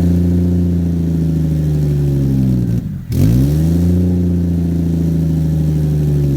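Turbocharged Toyota 1JZ inline-six running through a Ford Powerstroke diesel muffler pushed loosely onto its exhaust pipe. The sound is loud and steady, with a brief dip about halfway through. The loose joint between the pipe and the muffler is leaking exhaust.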